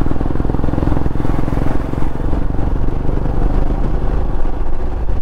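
Royal Enfield Himalayan's 411 cc single-cylinder engine running steadily at cruising speed through an aftermarket exhaust, heard from on the bike.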